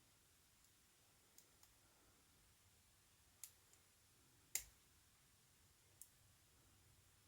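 Faint, sharp clicks from a lock pick working the pins inside a Kramer 38 mm padlock under light tension: a handful of scattered ticks, the loudest about halfway through.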